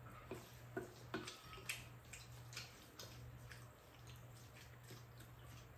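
Quiet eating: scattered faint clicks of metal and plastic spoons against ceramic bowls, over a low steady hum.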